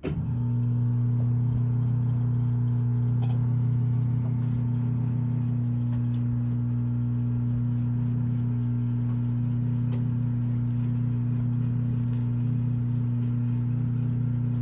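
Washing machine drain pump switching on abruptly and running with a steady, loud hum as it pumps water out. The drum is not spinning: the machine drains but will not spin.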